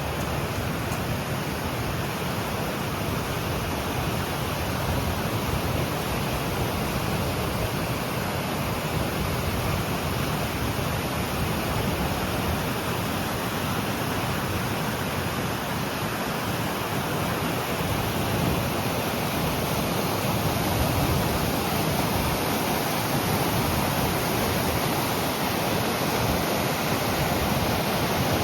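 Rushing water of a mountain waterfall: a steady, even wash of noise with no breaks or changes.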